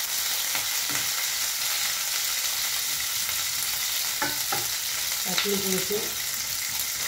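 Whole garlic cloves sizzling steadily in hot mustard oil in a frying pan while being stirred with a spatula, with a few light knocks of the spatula against the pan.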